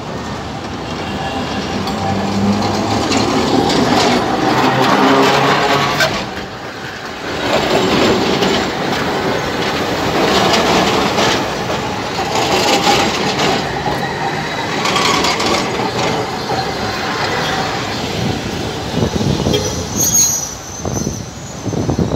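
Electric street tram passing close by at low speed, its steel wheels running loudly along the street rails.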